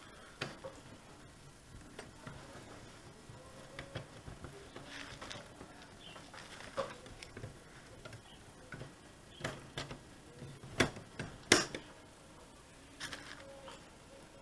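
Scattered light clicks and knocks of metal parts as the opened sheet-metal chassis and circuit board of a VW RNS510 navigation radio are handled, with two louder knocks a little past the middle.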